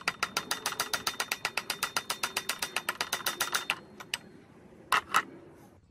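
Rubber mallet tapping quickly and evenly on the crankshaft end of an old four-stroke water-pump engine to knock the rusty flywheel loose, about ten sharp taps a second. The tapping stops a little before four seconds in, and two louder knocks follow about a second later.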